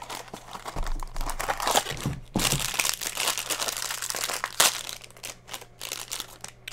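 Mystery-minis blind-box packaging being torn open and crinkled by hand: a dense run of crackles and rustles, loudest a little before halfway, with one sharp snap about two thirds of the way in.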